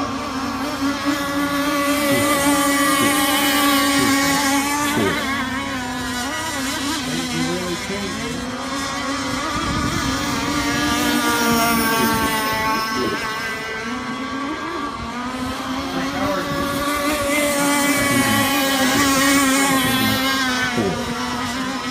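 Several radio-controlled model racing boats running at speed, their engines making overlapping pitched tones that rise and fall as the boats pass. It swells loudest a few seconds in and again near the end.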